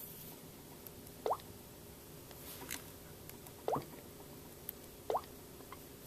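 Samsung Galaxy Note 3 touch sound: three short water-drop 'bloop' tones, each rising quickly in pitch, as the touchscreen is tapped through the menus. A brief soft rustle comes between the first two.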